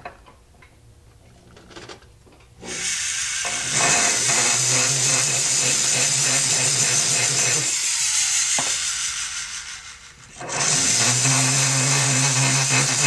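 Rotary tool fitted with a diamond bit grinding out the inside of a steel piston wrist pin, taking weight off so the piston can be balanced. It starts about two and a half seconds in and runs steadily with a high grinding hiss over a low motor hum. It dies away around ten seconds in, then starts again for the last few seconds.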